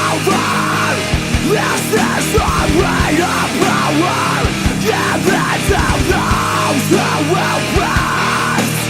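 Heavy metal song with distorted guitars, rapid kick drums and screamed vocals.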